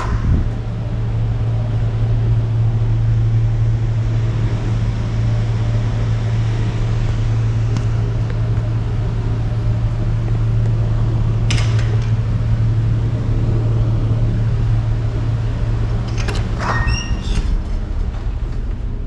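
Steady, loud low hum of a container ship's machinery and ventilation in the crew accommodation corridor. A door clicks at the start, there is a single sharp click about halfway through, and the cabin door latch clicks with a short squeak as the door opens near the end.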